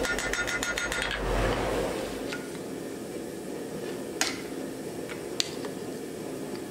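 A fast, even run of hammer blows on hot wrought iron on an anvil, with a ringing tone, that stops about a second in. Later come two sharp metallic clinks over a steady low hum.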